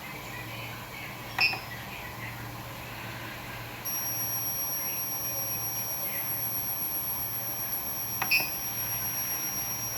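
Coil whine from a computer power supply: a steady high-pitched whine that switches on about four seconds in and holds, over a low hum. Two sharp clicks, one before the whine starts and one near the end.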